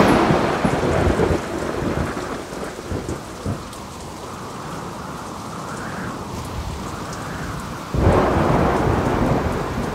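Thunder over steady rain: a loud clap right at the start that rolls away over a few seconds, then a second loud rumble about eight seconds in.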